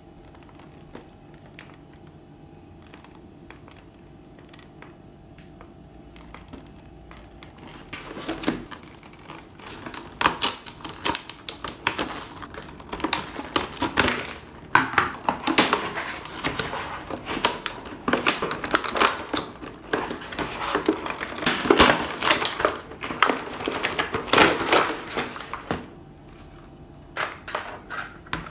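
Rapid crackling and clicking of plastic packaging handled and torn open by hand, starting about eight seconds in and easing off near the end; before it only a faint steady hum.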